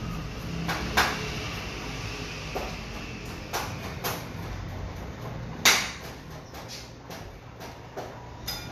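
Kitchen knife cutting cilantro on a cutting board: scattered sharp knocks of the blade on the board at irregular intervals, the loudest a little past halfway.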